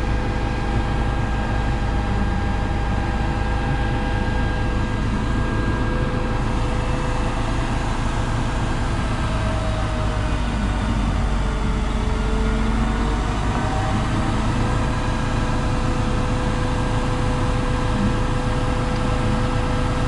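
Zoomlion 70-metre truck-mounted concrete pump running its engine and boom hydraulics while the boom is being folded: a steady mechanical drone with a held whine, whose pitch wavers briefly about halfway through.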